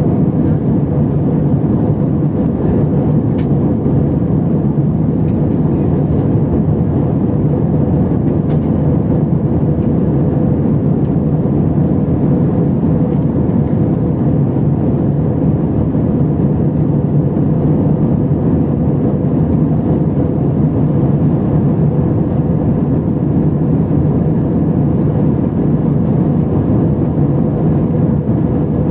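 Steady roar of an Airbus A320 in flight, heard inside the passenger cabin: engine and airflow noise with a constant low hum.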